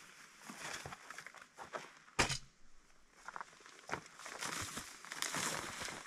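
Footsteps through tall grass and brush, the stems rustling and scraping in an uneven rhythm, with a sharp crack about two seconds in.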